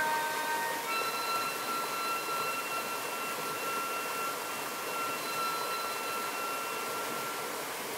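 Saxophone playing a short note, then holding one long, steady high note for about six seconds that fades out near the end, over the steady rush of river rapids.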